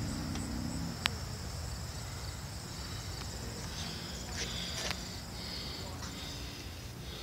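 Crickets and other insects trilling steadily and high-pitched, with a low hum that stops about a second in and a sharp click just after.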